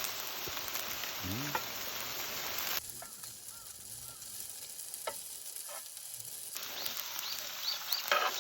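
Food frying in a pan, a steady sizzle with some stirring. The sizzle drops away abruptly about three seconds in and comes back strongly after about six and a half seconds.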